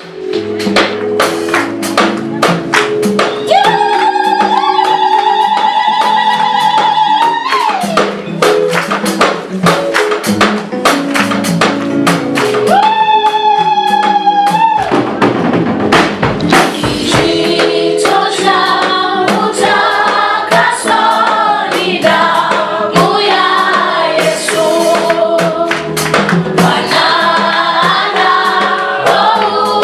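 Gospel song: a steady beat of percussion strikes under backing chords, with a long held high note twice. A choir comes in singing in harmony about two-thirds of the way through.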